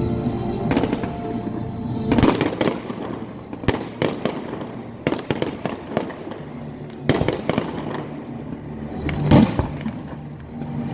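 Fireworks going off: a run of sharp cracks and bangs in irregular clusters, the loudest about two seconds in and again near the end.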